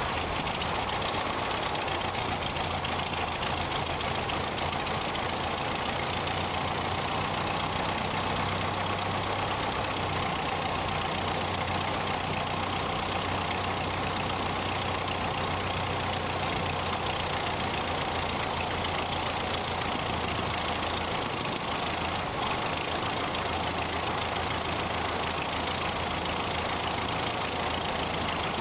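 The de Havilland DH51's 120 hp Airdisco air-cooled V8 engine idling steadily just after starting, with the propeller turning. Its low beat lifts slightly for a few seconds about a third of the way in and settles again.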